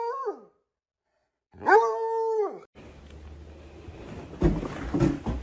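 Hound dog howling: a long, steady howl that breaks off about half a second in, then a second howl lasting about a second that drops away at its end. Then a few soft thumps and rustling.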